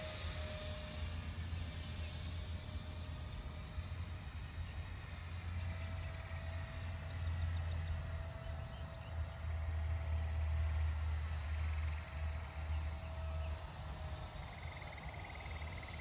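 Distant 50 mm electric ducted fan on an RC flying wing in flight, a faint whine that drops in pitch near the start as the plane passes and then wavers as it comes and goes, over a steady low rumble and a thin high insect tone.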